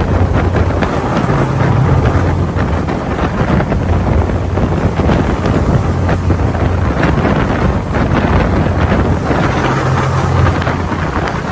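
Steady low drone of the ferry New Kasaoka's engine under way, with wind buffeting the microphone and rushing over it.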